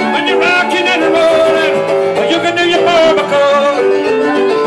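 Rock and roll piano played on a digital stage piano: a driving, up-tempo run of notes and chords.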